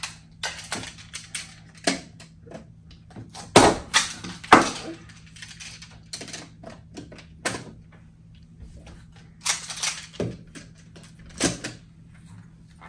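Clear plastic magnetic building tiles clicking and clacking as they are handled and snap together. The clicks are irregular, with a few louder clacks around four seconds in and again around ten seconds in.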